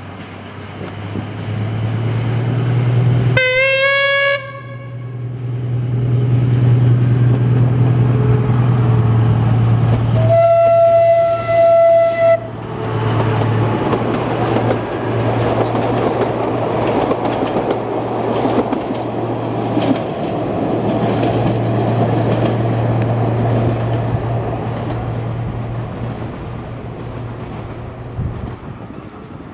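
BDŽ class 75 Henschel diesel-hydraulic locomotive on the 750 mm narrow-gauge line approaching with its engine running, sounding its horn twice: a short blast a few seconds in and a longer steady blast of about two seconds near the middle. It then passes close by with wheels clattering and clicking over the rails, the noise fading away near the end.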